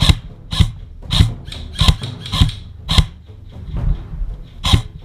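Footsteps at a steady walking pace, about one step every 0.6 seconds, each a short thud with a scuff.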